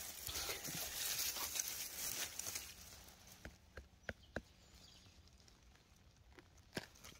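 Dry pine needles and dead bracken rustling and crackling as someone moves close to the ground, loudest in the first couple of seconds. After that it is quieter, with a few sharp separate clicks and snaps as a hand reaches into the litter and takes hold of the mushroom.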